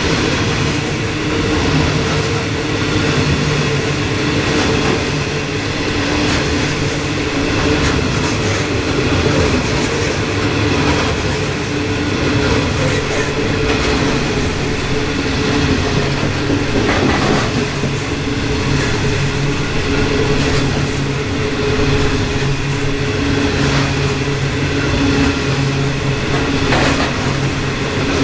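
Loaded coal hopper wagons of a long narrow-gauge freight train rolling past at steady speed: a continuous rumble of wheels on rails with a steady hum and occasional clicks and knocks from the wheels.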